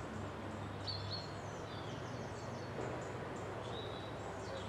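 Several wild birds chirping and whistling in short, scattered phrases over a steady low hum.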